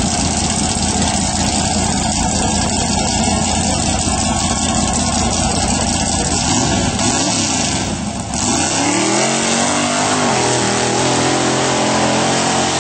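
Off-road vehicle's engine working hard under load, rough and rumbling, then revving up about eight seconds in and holding at high, steady revs.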